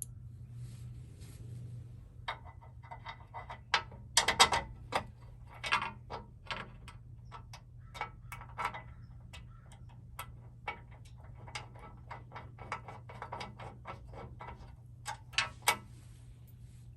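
Hand tools working bolts and nuts: runs of rapid ratchet clicking as a bolt is turned, broken by louder metal-on-metal clinks of socket and hardware.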